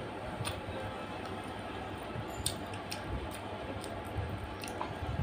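Eating sounds: a few sharp, wet clicks and smacks from chewing and from fingers picking at chicken feet in curry, over steady background noise.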